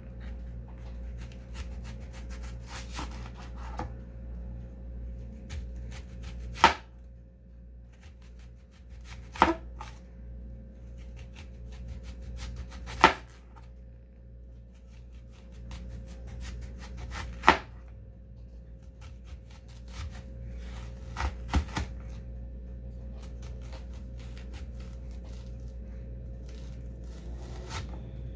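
Knife chopping food on a cutting board: light cutting strokes, with sharp hard knocks every few seconds and three in quick succession past the middle. A steady low hum runs underneath.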